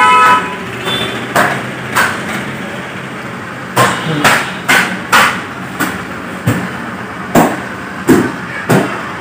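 A series of about a dozen sharp plastic clicks at uneven intervals, the buttons of a TV remote control being pressed to move through the YouTube menus and on-screen keyboard of an Android TV, over a steady low hum.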